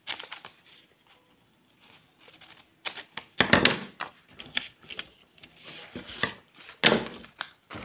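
Scissors cutting through a paper pattern near the start, then paper sheets rustling and crackling in a series of sharp, uneven bursts as the cut pieces are handled.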